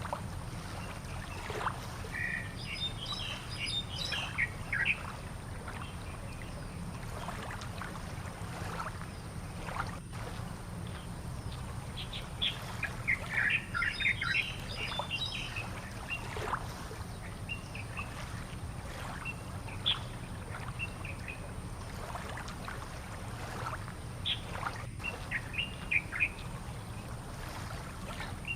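Birds chirping and calling in short scattered bursts, with several quiet gaps, over a steady low hum.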